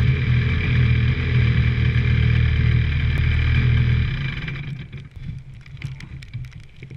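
125 cc two-stroke shifter kart engine idling steadily at close range, then shut off about four seconds in. Scattered light ticks and knocks follow.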